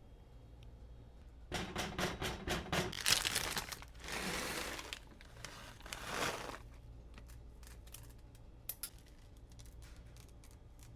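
Crinkling, rustling handling noises come in a run of short bursts from about a second and a half in to about six and a half seconds, followed by a few faint clicks.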